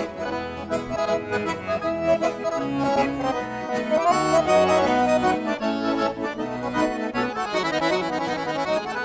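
Accordion playing an instrumental break of a gaúcho dance song, leading the melody over the band's steady beat.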